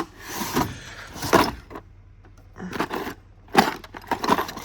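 Rummaging through tools and odds and ends in a cluttered shop: a series of irregular clatters and knocks as things are moved and set down.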